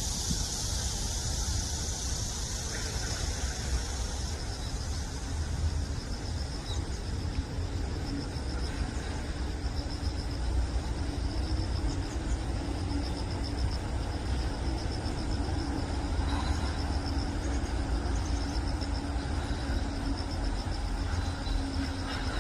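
Outdoor ambience: a steady low rumble of distant traffic, with insects trilling in high, rapid pulses from about five seconds in.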